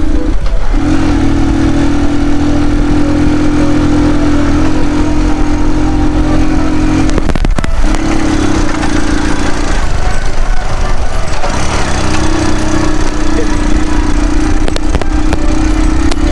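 A 100cc motorcycle being ridden: a steady engine hum under a broad rush of wind and road noise. The engine note drops away briefly twice, about seven and ten seconds in.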